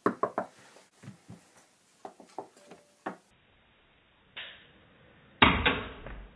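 Several light knocks and taps, then near the end a cat jumps past, a louder thump with a brief scuffle as it lands.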